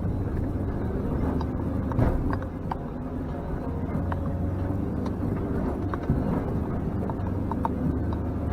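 Off-road vehicle's engine running steadily under load in first gear on a climb, with scattered knocks and rattles from the rough track.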